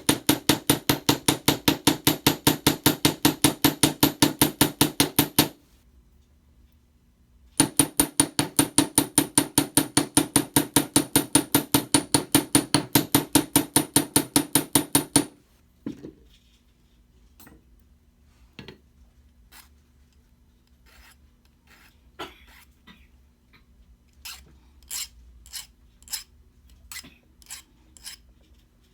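Chasing hammer striking brass wire on a steel bench block, flattening the tongue of a wire hook clasp: two long runs of rapid, evenly spaced metallic taps with a high ring, a short pause between them. After that come a few scattered light clicks of tools and wire being handled.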